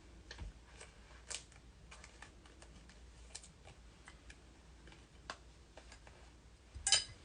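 Scattered light clicks and taps of trading cards and their plastic holders being handled on a table, with a sharper click near the end.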